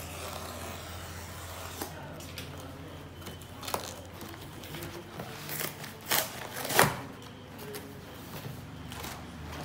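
Plastic packing tape being slit with a utility knife and ripped off a cardboard shipping box, with several sharp crackles and tears, the loudest about seven seconds in as the cardboard flaps are pulled open.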